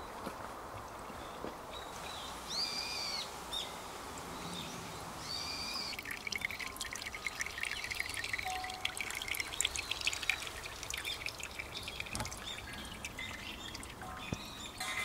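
A bird calls a couple of times over a steady outdoor hush. From about six seconds in, a thin stream of water from a bamboo spout trickles and splashes into a stone tsukubai basin set over a suikinkutsu. Near the end the suikinkutsu's first faint bell-like ringing tones begin.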